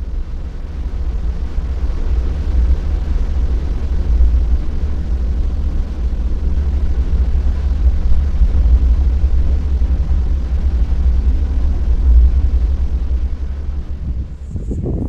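Open-top Jeep driving along a hard-packed sand beach: a steady low rumble of engine, tyres and wind, easing off near the end.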